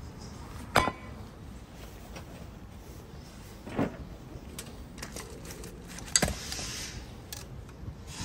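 Metal clinks and knocks from a Nissan Qashqai's front brake disc being taken off the wheel hub. There is a sharp ringing clink about a second in, a duller knock near four seconds, and another sharp clink just after six seconds followed by a brief hiss.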